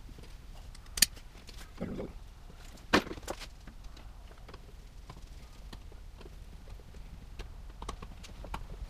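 Sharp plastic clicks and a short rustle as the cover plate is taken off a GFCI outlet, the loudest about a second in and again about three seconds in, then a few faint ticks of a screwdriver at the outlet near the end.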